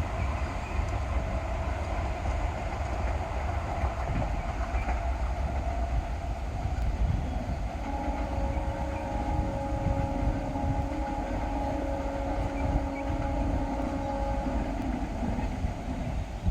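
ICF MEDHA electric multiple-unit local train running on the rails with a steady low rumble. About halfway through, a steady whine of several tones sets in for some seven seconds.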